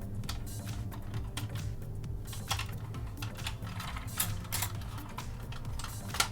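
Plastic parts of a toy helicopter clicking and tapping irregularly as its wings and mechanisms are worked by hand, with a sharper click near the end.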